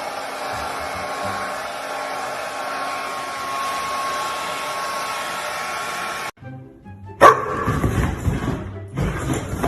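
A steady motor whir with a faint hum, which cuts off abruptly about six seconds in. A second later a dog barks over background music.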